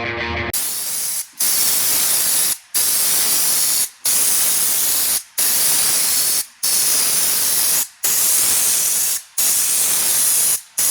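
Compressed-air applicator gun spraying two-pack truck bed liner coating: a loud hiss in about nine bursts, each a little over a second long, with short breaks between trigger pulls.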